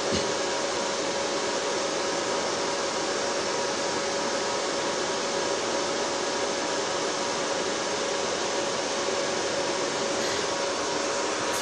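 Cooling fans of a Dell C6100 rack server running steadily: an even rushing noise with a few steady whining tones.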